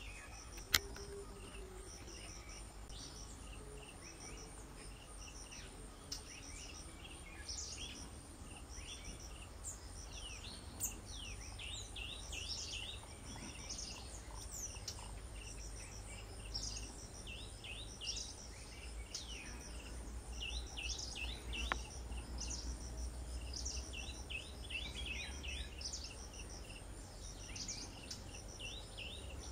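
Insects chirping in an evenly repeating high pulse, with small birds' short chirps and calls coming in clusters, over a steady low rumble. A single sharp click about a second in.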